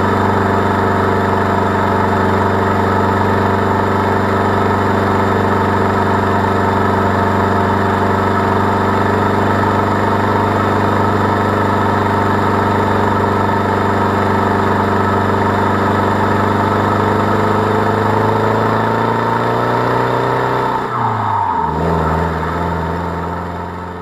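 Land Rover Defender 110's remapped four-cylinder TDCi diesel pulling steadily under load while towing a tractor on a tri-axle trailer. About three-quarters of the way through, the engine note falls and settles lower, and the sound fades out at the very end.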